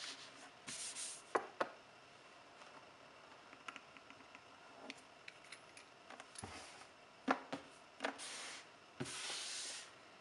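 A knife and rolled fondant being handled on a work surface: short stretches of scraping noise and a few light clicks and taps.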